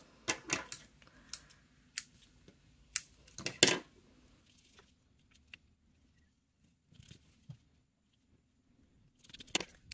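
A few sharp snips of scissors cutting baker's twine in the first few seconds, then faint light ticks and rustles as fingers work the cut strands.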